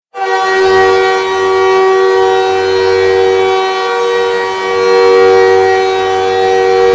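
Montreal Canadiens goal horn sounding one long, steady blast that starts abruptly, the hockey arena's signal that a goal has been scored.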